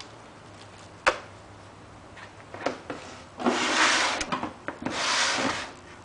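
Handling noise as a corded electric shearing handpiece and its cable are lifted out of a hard plastic carrying case: a sharp click about a second in, then two rustling rubs a little past the middle, the first about a second long and the second shorter.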